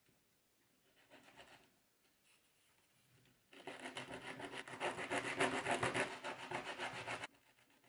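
Edge of a thin piece of Brazilian cedar rubbed rapidly back and forth on a flat sheet of medium-grit sandpaper: a scratchy sanding sound of quick strokes that starts about three and a half seconds in and stops abruptly near the end.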